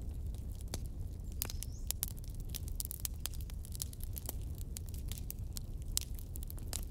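Fire crackling: irregular sharp snaps and pops over a steady low rumble, with a brief faint rising whistle about a second and a half in.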